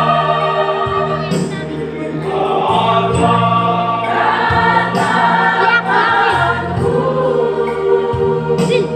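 Church choir singing a hymn together in harmony, with low held notes underneath that change every second or two.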